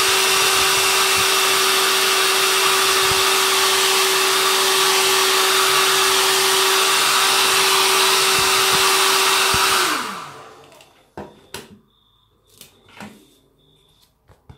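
Handheld hair dryer blowing steadily, then switched off about ten seconds in, its motor whine falling away as it spins down. A few light taps follow.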